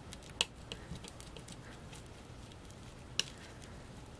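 Metal palette knife spreading whipped spackle over a plastic stencil: a handful of light clicks and taps of the knife on the stencil, the sharpest about half a second in and another just after three seconds in.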